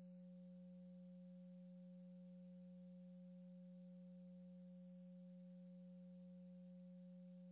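Near silence with a faint, steady, unchanging low hum.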